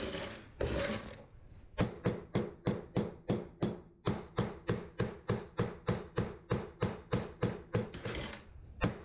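A hammer striking a ceramic floor tile over and over with the corner of its head to crack it up and chip it out. The blows settle into a steady beat of about three a second from about two seconds in, each with a short ring.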